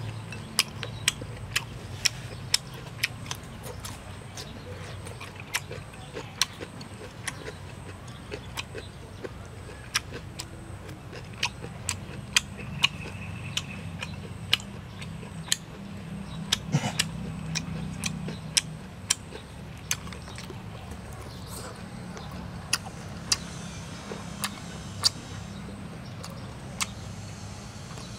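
A person eating with wooden chopsticks: irregular sharp clicks of chopsticks against a plate, with chewing and lip smacks, over a steady low hum.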